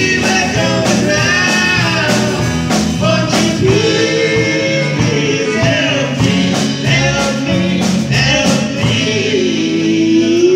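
A live rock band playing, with electric guitars, drums and keyboard under a man's singing. Near the end a long note is held.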